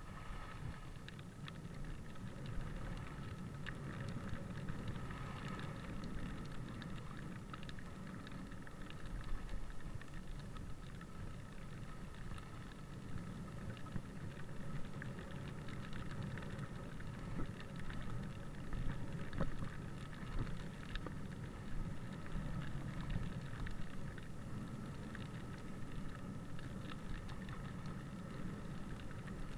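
Skis sliding over groomed snow during a descent: a steady low rumble of the skis on the snow with scattered small clicks and scrapes.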